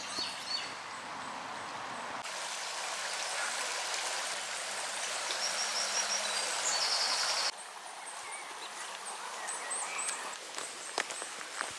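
A small, shallow river running over stones, a steady rush of water, with birds singing over it. About seven and a half seconds in, the water sound drops away suddenly, leaving quieter birdsong and a few faint clicks.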